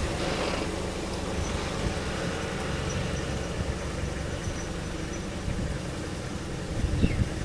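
A vehicle engine idling steadily, a low even rumble.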